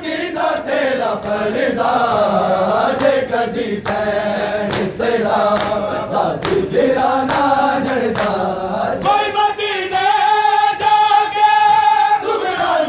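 Crowd of men chanting a nauha, a Shia mourning lament, in unison behind a lead reciter, with a long held note from about nine seconds in. Scattered sharp slaps of chest-beating (matam) sound through the singing.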